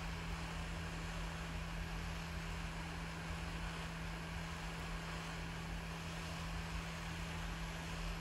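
Hot air rework station blowing a steady rush of hot air with a constant low hum, heating a solder-seal heat-shrink connector until its solder ring melts.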